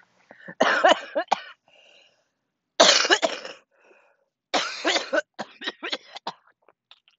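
A woman coughing: three hard coughing fits, each under a second, followed by several short, sharp coughs.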